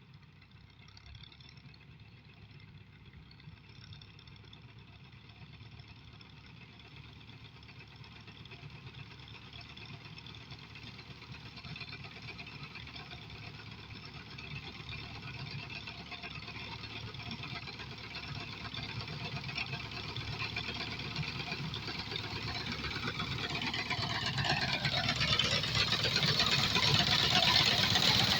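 Engine of a wheat-harvesting machine running steadily and growing steadily louder as it draws closer, loudest near the end.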